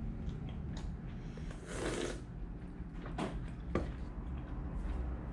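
A person sipping hot tea from a paper cup, with one noisy slurp about two seconds in, followed by a few light knocks as the cup is set back down on the table.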